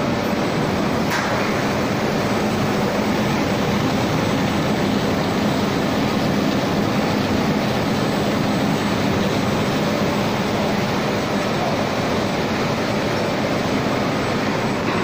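A 6-colour, 80 cm flexographic printing press running, its rollers and web drive making a steady mechanical noise with a low hum underneath. A brief click sounds about a second in.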